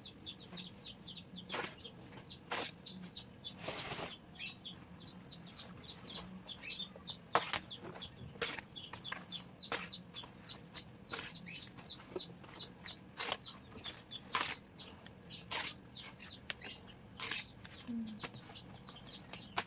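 A bird chirping steadily, three to four short falling chirps a second, over brief rustles and taps about once a second from banana leaves being torn and wiped by hand.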